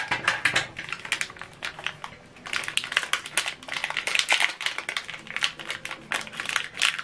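Hands working a small plastic ink cartridge and its packaging: a rapid, irregular run of small clicks and rustles, getting busier about two and a half seconds in, as the HP 305 black ink cartridge is unpacked.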